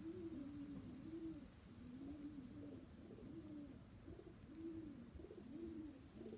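Domestic pigeons cooing, a continuous run of low rising-and-falling coos from more than one bird, overlapping at slightly different pitches.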